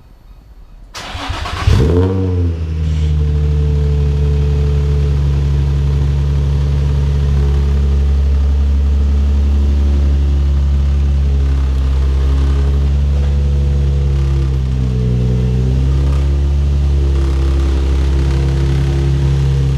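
Nissan 350Z's 3.5-litre V6 being started: the starter cranks briefly about a second in, the engine catches with a short rise in revs, then settles into a steady idle with a slight dip and recovery in pitch near the end.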